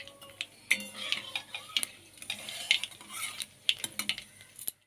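Flat metal spatula stirring, scraping and clicking against a metal kadai while a tempering of dried red chillies and nigella seeds sizzles in hot oil. The sound cuts off suddenly near the end.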